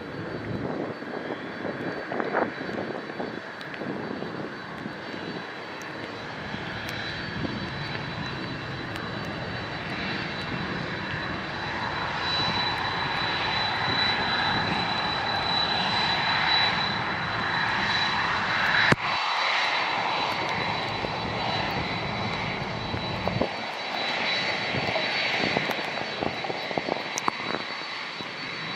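Jet airliner engines heard through storm wind buffeting the microphone, growing louder as the aircraft comes close, with a high steady whine over the roar at its loudest.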